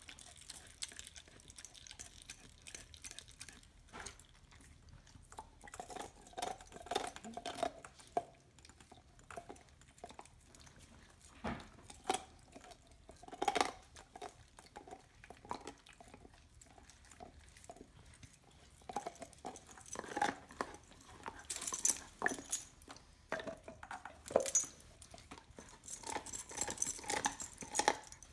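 A dog gnawing a raw marrow bone: teeth scraping and clicking on the bone in irregular bouts, with a few sharper crunches in the middle and near the end.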